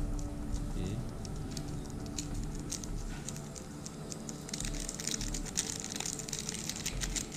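A small plastic sachet crinkling as it is squeezed and shaken to empty boric acid into a plastic bowl, a run of fine crackles that grows denser about halfway in.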